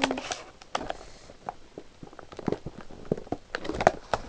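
Cardboard box and clear plastic tray of a model train coach being handled and pulled open: irregular clicks, taps and crackles of plastic and card, busier near the end.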